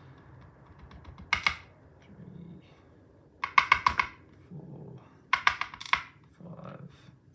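Small metal lock pins and tweezers clicking and tinkling against the lock core and a hard surface, in several short rapid clusters, as the padlock's pin-tumbler core is taken apart.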